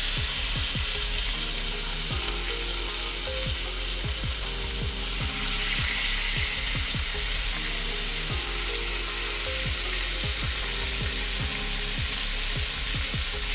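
Beef filet searing in hot olive oil in a stainless steel frying pan: a steady, loud sizzle as the meat is turned onto its sides with metal tongs.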